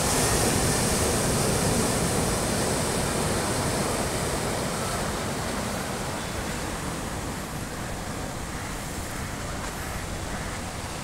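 Sea surf breaking and washing over shoreline rocks, a steady rush of foaming water that is loudest in the first few seconds and then eases off.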